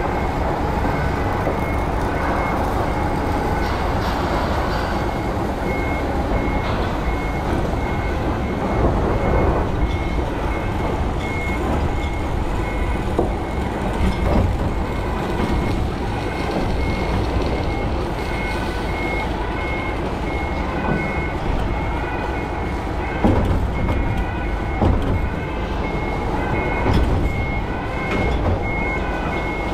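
Semi-trailer truck backing slowly: its reverse alarm beeps at a steady, even rhythm over the low running of the diesel engine, with a few short knocks in the later part.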